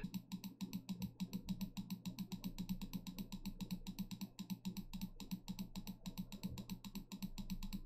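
SteelSeries Sensei gaming mouse button clicked rapidly and evenly over and over, about eight clicks a second. The freshly cleaned switch is being tested after it had been misregistering and double-clicking.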